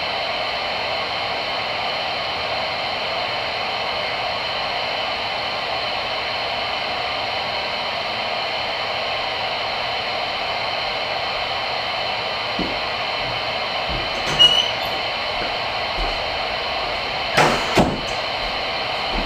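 Steady hiss of AM static from a Voyage CB radio's speaker with the squelch open, tuned to channel 22 (27.225 MHz) while no one is talking. A few clicks and crackles break in over the last several seconds, the loudest pair about two seconds before the end.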